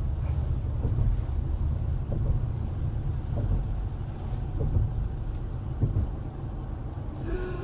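Steady deep road and engine rumble of a car driving at speed, heard from inside the cabin, with a few faint knocks.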